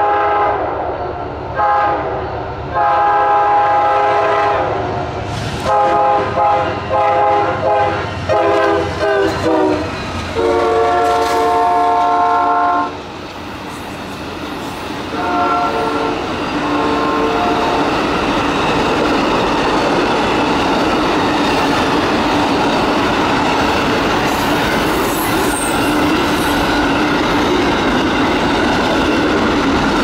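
Amtrak Auto Train locomotive's multi-chime air horn played as a horn show. There are a few longer blasts, then a run of quick short toots, then a long blast at a lower pitch as the locomotive passes, and two fainter toots after it. For the second half, the long train of passenger and auto-carrier cars rolls past with a steady rumble and wheel clatter.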